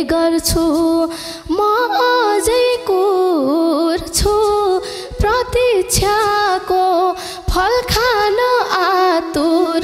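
A woman sings a Nepali dohori folk melody with wavering, ornamented turns over a steady held keyboard tone and regular drum strokes.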